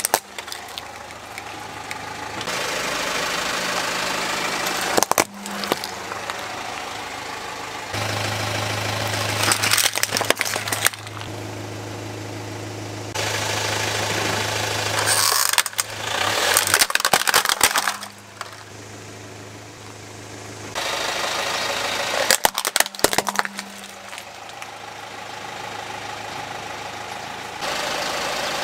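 Car engine idling while its tyre rolls over plastic toys, with about four bursts of sharp cracking and crunching plastic. The engine hum changes abruptly several times between short cut-together clips.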